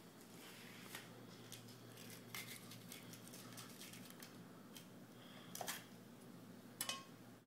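Chef's knife cutting a jalapeño on a wooden cutting board: faint, irregular knife cuts and taps on the board, with two louder knocks near the end, over a steady low room hum.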